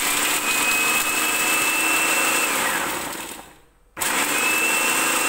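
Electric food processor grinding a dry spice mix to powder, run in two pulses. The motor whines steadily, winds down and stops about three seconds in, then starts up again at about four seconds.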